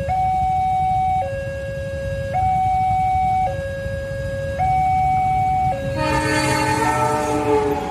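Railway level-crossing warning alarm: an electronic two-tone signal swapping between a higher and a lower tone about once a second, over the low rumble of waiting motorcycles. About six seconds in, the approaching train's horn sounds over it.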